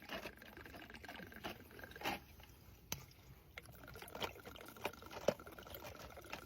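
Vodka poured into cups, with scattered clicks and knocks of bottles and cups being handled, the sharpest about five seconds in.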